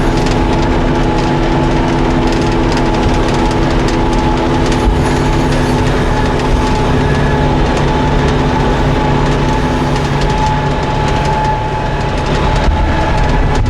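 Tractor engine running steadily while powering a John Deere 535 round baler, with a steady hum and continuous mechanical rattle from the baler at work.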